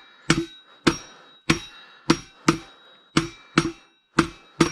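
A hammer striking a metal part, about ten sharp blows mostly in pairs, each leaving a brief metallic ring.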